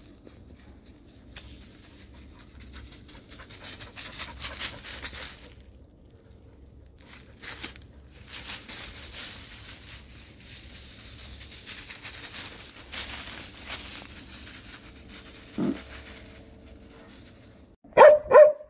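Dry leaf litter rustling on and off under moving feet, then near the end a Jindo dog barks loudly twice.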